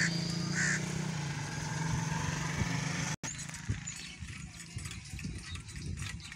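Small vehicle engine running steadily with a low hum, which cuts off abruptly about three seconds in; after that only quiet outdoor ambience with a few faint knocks.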